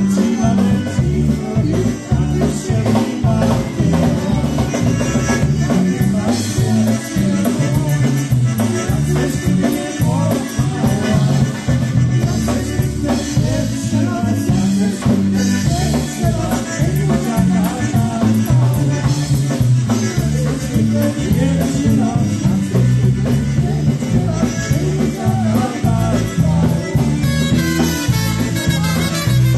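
Live polka band playing a polka at a steady dance tempo, with a bouncing bass line and drums.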